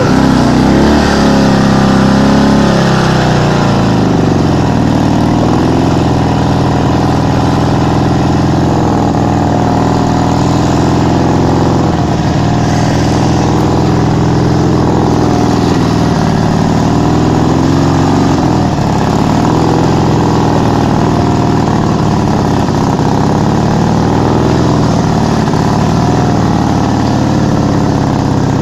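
Dnepr MT-11 sidecar motorcycle's flat-twin (boxer) engine running under way, heard from the sidecar. The engine note climbs over the first few seconds as it accelerates, then rises and falls with the throttle.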